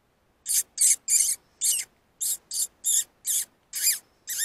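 Fox call: a run of about ten short, high-pitched squeaks, two or three a second, coming a little faster near the end, squeaked to draw in a fox.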